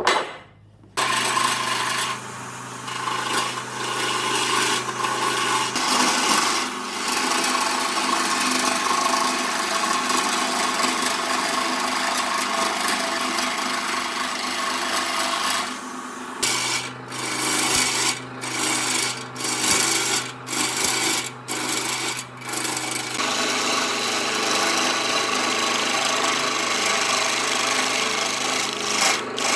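A power tool abrading wood: a continuous rough rasping over a steady motor hum, broken by short gaps about once a second for a while after the middle.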